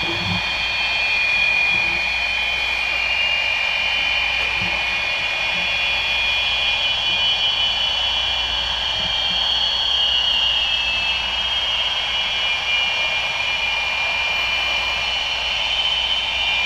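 Feedback from Fisher-Price baby monitors, the receivers and transmitters moving against each other: several high steady feedback tones over a constant hiss, the tones drifting slowly in pitch.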